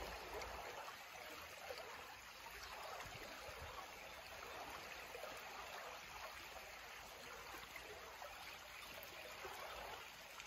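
Creek water running, a faint, steady rush of flowing water.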